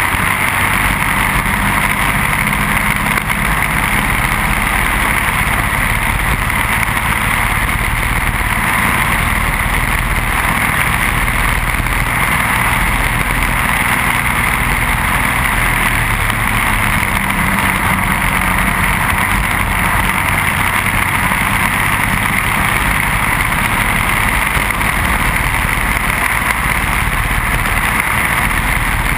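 Onboard sound of a racing kart's Briggs & Stratton Animal single-cylinder four-stroke engine running steadily at race speed, mixed with wind and road noise on the kart.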